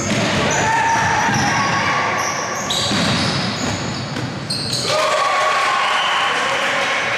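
Game sounds of a youth basketball game on a hardwood gym floor: a basketball bouncing, many short high squeaks of sneakers on the court, and spectators and players shouting.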